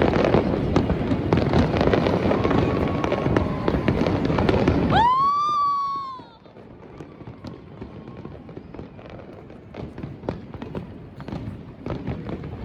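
Fireworks display: a dense, loud run of crackling and bangs that stops abruptly about five seconds in, followed by a short whistle that rises then falls, then sparser, fainter pops and crackles.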